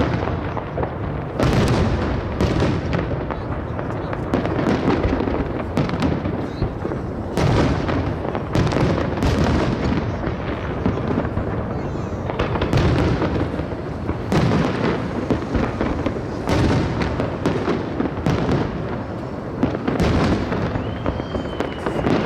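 Aerial fireworks shells bursting in a continuous barrage, one sharp burst after another with no pause. A thin whistling tone rises and then slowly falls near the end.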